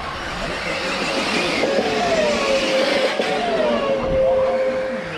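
Several radio-controlled racing cars running on the track, their motors whining up and down in pitch as they speed up and slow down. From about two seconds in, one whine stands out, dipping and then holding steady.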